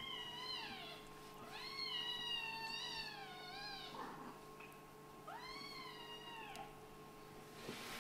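A Scottish Fold × British Shorthair kitten meowing in long, high-pitched calls: one trailing off just after the start, a long one from about one and a half to four seconds in, and another from about five to six and a half seconds in.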